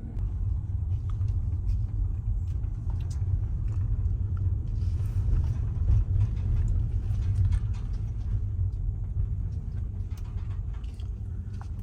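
Steady low rumble of a car heard from inside the cabin: engine and road noise while sitting in slow highway traffic.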